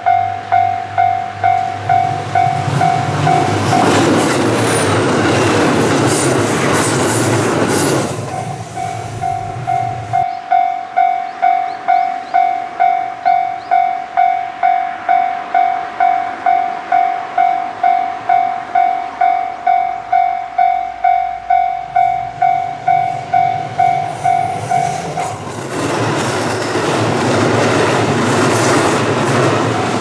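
Japanese railway level-crossing warning bell ringing steadily, about twice a second. Twice a diesel train rumbles past the crossing, with a rushing of wheels and a low engine drone, and the bell is lost under it while the train goes by.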